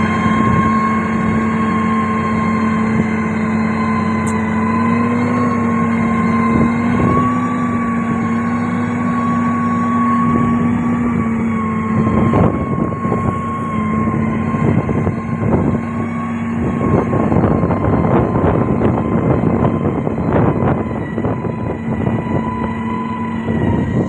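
Diesel engine of a SANY STG190C-8S motor grader running steadily under load as the blade pushes clay and gravel, with a constant pitched hum. From about halfway in, irregular crunching and rattling of soil and stones joins it.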